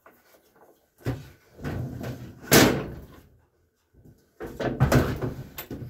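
Steel Case Ingersoll RM mower deck being turned over and set down on a cart, with a knock about a second in, the loudest bang about two and a half seconds in, then scraping and rattling near the end.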